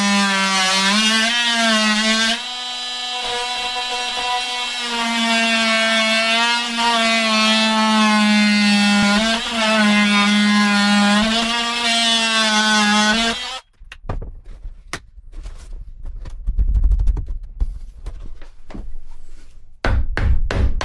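A power tool cutting a notch out of a plywood wall panel, running steadily with its pitch dipping now and then under load. It stops about two-thirds of the way through, and irregular knocks and taps on the wood follow.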